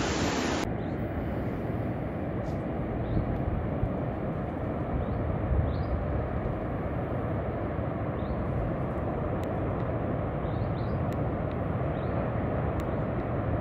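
Ocean surf washing in at first, then a steady low rumble of distant surf breaking on a beach. Faint short high chirps are scattered through it.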